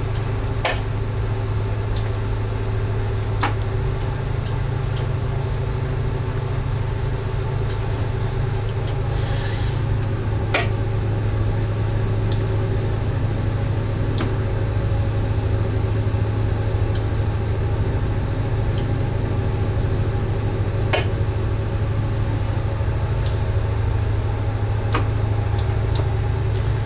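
A tugboat's diesel engine running with a steady low drone, with a few faint clicks.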